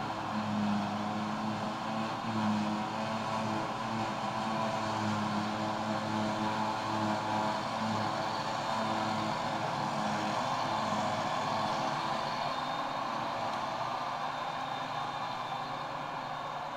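Claas Jaguar 940 self-propelled forage harvester running steadily under load while picking up and chopping grass, together with the tractor pulling the silage trailer alongside. A continuous low engine hum with a higher whine over it, easing off slightly near the end.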